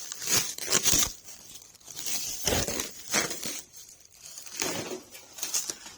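Packaging being handled during an unboxing: irregular bursts of rustling, crinkling and tearing, loudest in the first second and again past the middle.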